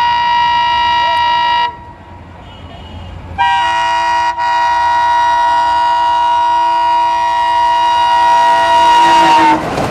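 WDM3A diesel locomotive's horn sounding in two blasts. The first, a chord of several steady tones, cuts off about a second and a half in. After a short gap with only the rumble of the approaching train, a long blast of about six seconds follows, broken once by a brief dip, and stops near the end as the train's running noise takes over.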